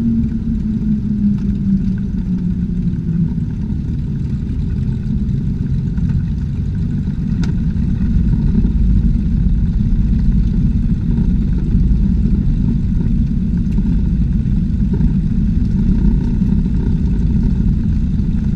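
Cessna 210's six-cylinder piston engine and propeller running at low power through the landing rollout and taxi, its pitch dropping over the first few seconds, under a steady low rumble.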